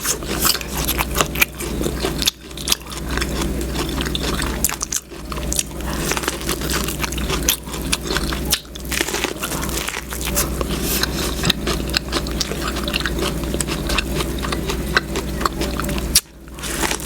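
Close-miked eating: a person biting and chewing food, with a dense run of small crackly mouth clicks and a few short sudden breaks.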